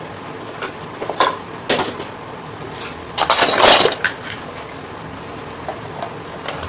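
Small plastic toys being handled and knocked together: scattered clicks and knocks, with a louder rattling clatter about three seconds in.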